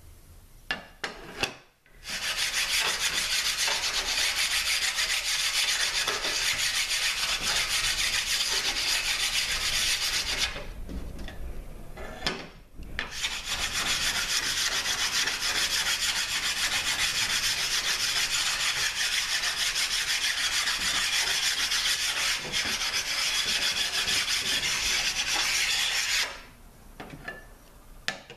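Transmission valve body casting being flat-sanded with a hand-held abrasive stone over an oily surface: fast back-and-forth rasping strokes, in two long runs with a pause of about two seconds a third of the way in. A few short knocks come before the first run as the parts are handled.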